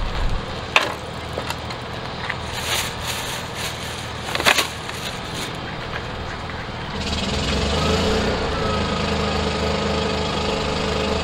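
Clicks and crinkly rustling of a plastic bag and drink bottle being handled. About seven seconds in, a small engine comes in and runs steadily, becoming the loudest sound.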